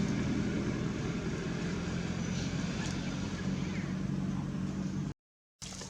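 A steady low engine hum, like a motor vehicle running nearby, with a constant drone throughout. It cuts to dead silence for about half a second near the end.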